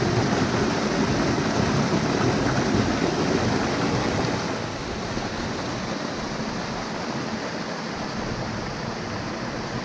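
Small waterfall in a rocky creek, water pouring over the rocks in a steady rush. About halfway through it drops a little in level and carries on steadily.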